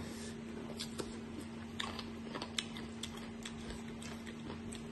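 Close-up mouth sounds of chewing crisp green mango: irregular, sharp wet clicks and smacks, about ten of them. A steady low hum runs underneath.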